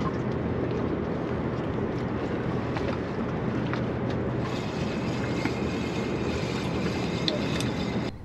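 Steady wind on the microphone and water noise aboard a small fishing boat, under a steady low engine hum. It cuts off suddenly near the end.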